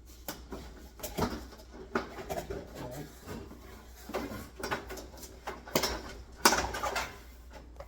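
Irregular clicks, knocks and rattles of a light fixture and its parts being handled, with a louder cluster of knocks near the end.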